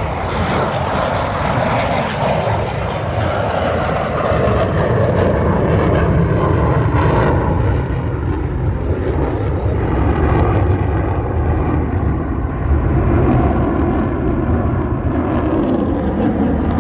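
Jet aircraft flying overhead in formation: a continuous rushing jet noise that grows louder over the first few seconds and then holds steady.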